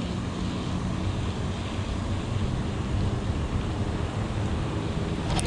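Steady wind noise on the microphone: an even rushing hiss with a low rumble. A brief click comes near the end.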